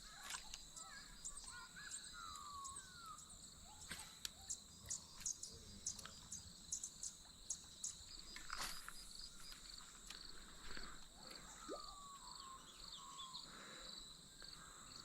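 Faint creekside ambience: insects droning in a steady high tone, with birds giving short falling whistled calls. A run of sharp ticks comes a few seconds in.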